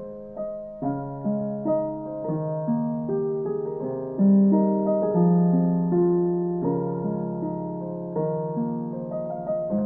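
Calm background piano music: slow notes and chords, each struck and left to fade.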